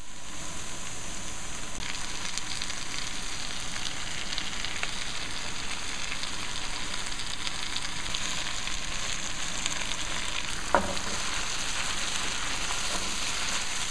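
Onions, leeks and other vegetables sizzling in oil in a deep sauté pan: a steady frying hiss. A brief sharp sound with a quick downward slide cuts through it about eleven seconds in.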